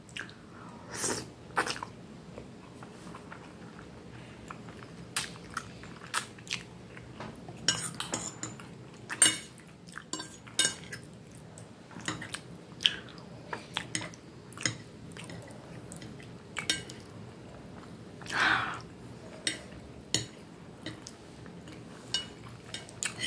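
Metal fork and knife clinking and scraping against a plate while cutting and picking up pasta and meatballs in tomato sauce, with close-up chewing between the clicks. The clicks come irregularly, and there is one longer scrape about 18 seconds in.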